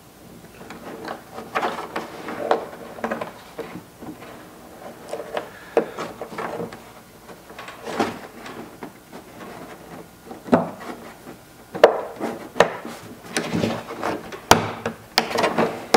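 A metal trim ring being pushed and worked by hand over a flush-mount door handle, a tight fit: scattered rubbing and scraping with small clicks and knocks, coming thicker and sharper in the last few seconds.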